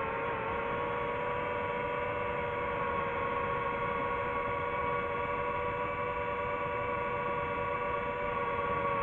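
DJI FPV drone's motors and propellers humming steadily at a near-constant pitch while it cruises, with a slight dip in pitch just after the start.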